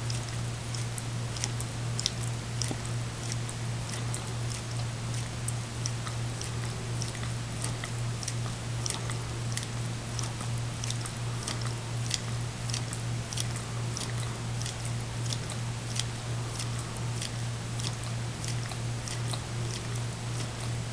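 A greyhound licking frozen dog ice cream out of a small cup: quick wet licks and tongue clicks, about two a second, over a steady low hum.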